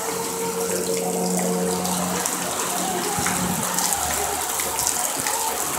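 Heavy rain pouring down steadily, a dense, even rush of water.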